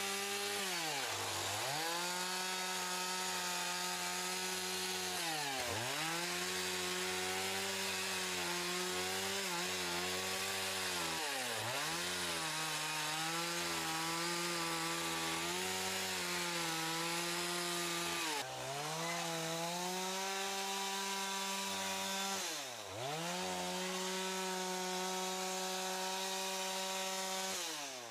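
Two-stroke chainsaw cutting a log into boards at full throttle. The engine note sags sharply and picks back up every few seconds, then drops off as the throttle is released at the very end.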